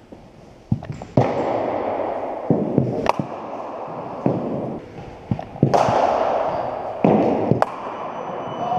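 Cricket balls being struck by bats and thudding into the floor and netting in an echoing indoor sports hall. Four sharp knocks come roughly two seconds apart over a steady background din of the hall.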